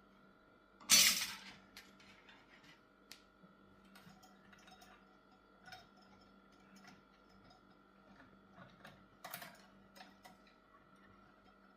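Small metal clicks and rattles of hands working on a cuckoo clock's movement and chains. A louder clattering rattle comes about a second in and another near the end, over a faint steady hum.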